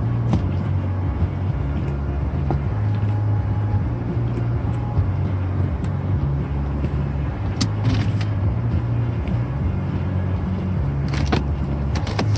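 Car engine and road rumble heard from inside the cabin while creeping slowly along, a steady low hum. A few light ticks stand out over it near the middle and near the end.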